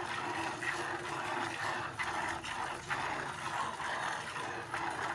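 Cow being milked by hand: milk squirting from the teats with a short hiss at each pull, about two strokes a second in an even rhythm.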